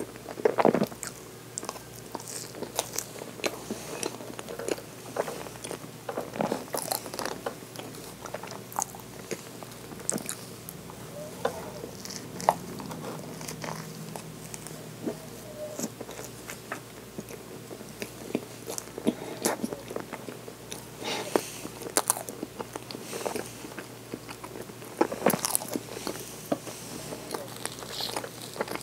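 Close-miked eating of soft cakes: chewing with wet mouth clicks and smacks, irregular and close together. Near the end, a plastic spoon scoops in a plastic dessert cup.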